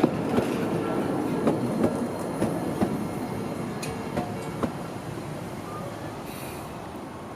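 Toden Arakawa Line tram running past on the track, its wheels clacking over rail joints in quick pairs, fading as it moves away.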